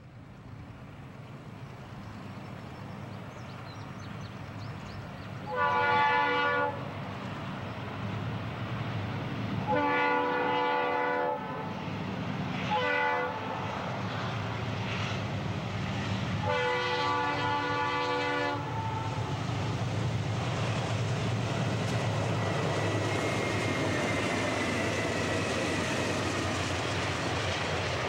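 Diesel freight train approaching a grade crossing, its locomotive air horn sounding the crossing signal: two long blasts, a short one and a final long one over the growing engine rumble. After the horn the train rolls past with steady wheel and car noise.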